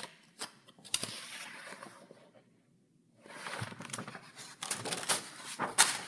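Paper pages in a file being turned, crisp rustles with sharp snaps of the sheets. Two bouts of page turning with a short pause between them about two and a half seconds in.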